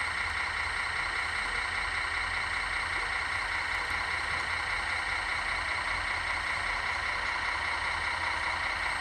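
Radio-controlled construction models running: a steady engine-idle hum with a constant high whine.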